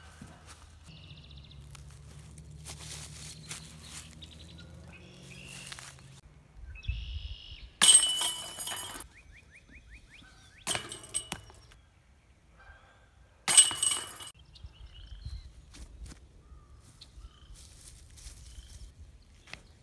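Three separate disc golf putts striking a metal chain basket, each a sudden jangling crash of chains and metal that rings and fades within about a second. Birds chirp faintly in between.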